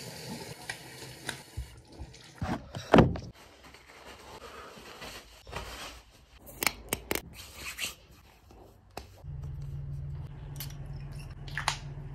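A bathroom tap running briefly at the start, then scattered clicks, knocks and scraping of things being handled in a small room, the loudest a cluster of knocks about three seconds in. A steady low hum sets in about nine seconds in.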